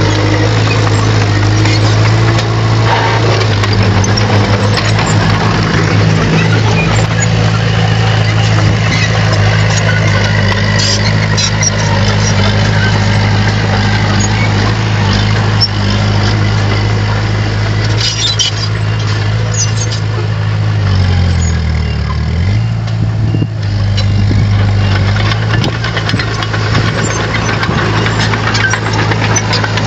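Bulldozer's diesel engine running steadily under load while pushing soil. About two-thirds of the way through, its note drops for a second or two, then comes back up. There are a few short clicks from the machine.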